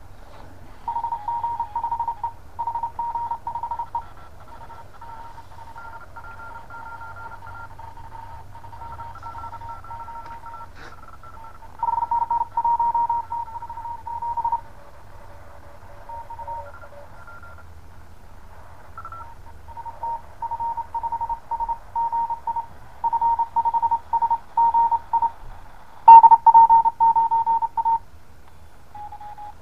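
Morse code (CW) on the 20 m amateur band through the small speaker of a cheap HF QRP SDR transceiver: a tone near 1 kHz keyed on and off in dots and dashes, with fainter signals from other stations at higher and lower pitches. A steady low hum runs underneath, and the loudest keying comes near the end.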